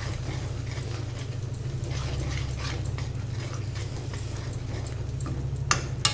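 Tomato masala frying in a kadhai as it is stirred, over a steady low hum, with a couple of sharp knocks of the spatula against the pan near the end.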